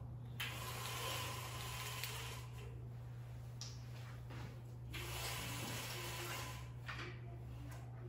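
Aluminium venetian blinds being raised by their pull cords, twice: each pull gives a rushing, hiss-like sound about two seconds long as the cord runs through the head rail and the slats gather. A steady low hum lies underneath.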